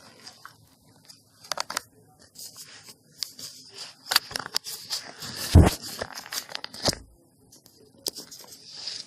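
Handling noise right on a phone's microphone as the phone is fitted into a plastic case with a felt-like lining: scraping, rustling and sharp clicks, with one loud thump about halfway.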